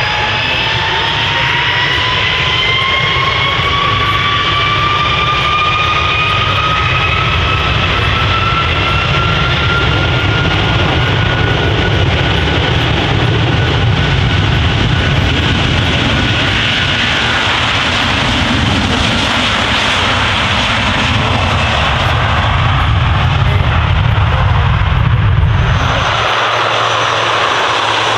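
Airbus A330-300 jet engines spooling up: whines rise steadily in pitch for about fifteen seconds over a loud low rumble. Near the end the sound cuts abruptly to the steady low drone of a four-engine turboprop.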